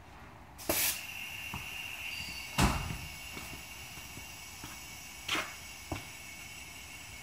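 A steady hiss starts about a second in and runs on for several seconds, over a few knocks and clanks, the loudest about two and a half seconds in.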